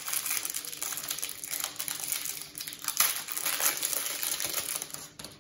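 Crinkling of a clear plastic wrapper being pulled off a deck of game cards by hand, in several rustling bursts that stop shortly before the end.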